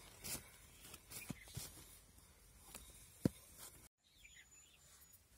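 Faint knocks and clicks of a wooden rolling pin working poori dough on a plate, the sharpest knock a little past three seconds in. After a brief break in the sound, a short, high, thin bird chirp over quiet outdoor background.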